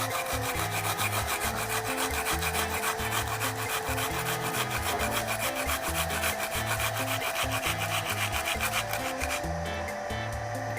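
Shallots being grated by hand on a grater covered with plastic: quick, repeated scraping strokes. The scraping thins out near the end.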